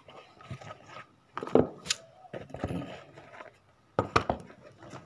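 Handling noise from a leather shoe being turned over in the hands: irregular knocks, clicks and rubbing, with a few sharp taps, one about a second and a half in and a quick cluster about four seconds in.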